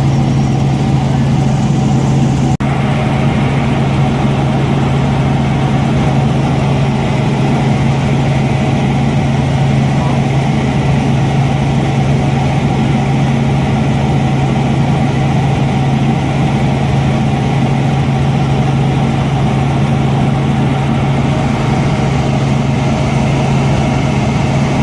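Robinson R44 Raven I helicopter's piston engine and rotors running steadily, a constant loud drone with a strong low hum.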